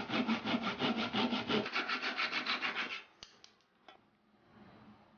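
Back saw cutting through a thin strip of plywood with quick, even back-and-forth strokes, stopping about three seconds in. A few light clicks follow.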